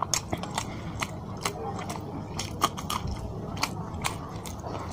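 Close-miked chewing of a mouthful of fish bhuna and rice, with frequent irregular wet mouth clicks and smacks.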